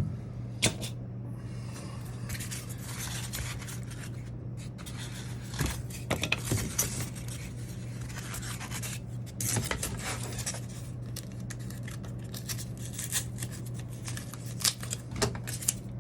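Styrofoam pieces being handled and pressed down with hot glue: irregular scratchy scraping and small clicks, over a steady low hum.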